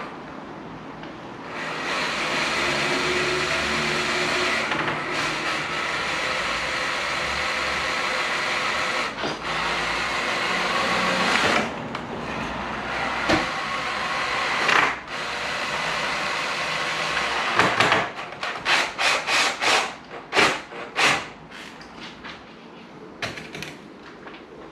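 Electric drill-driver running on 4.8 × 80 mm self-tapping screws, boring through the uPVC bay window frame into the metal frame behind it. It runs steadily for a long stretch with a few brief stops, then comes in a quick series of short trigger bursts before it falls quiet.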